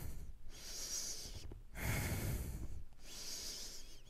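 A person breathing slowly and audibly while holding a yoga pose: soft, airy breaths in and out, each lasting about a second, with short pauses between them.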